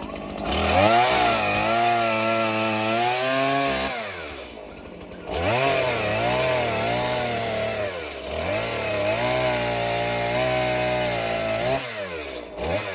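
Two-stroke Stihl MS 390 chainsaw running at high revs, easing off and revving back up twice, about 4 and 12 seconds in, with a brief dip near 8 seconds.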